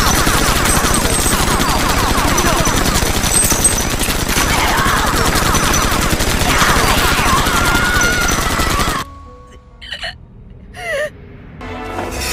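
Dense, rapid gunfire, many shots a second in a sustained volley, over music. It cuts off suddenly about nine seconds in, leaving two brief swishing effects before the music returns.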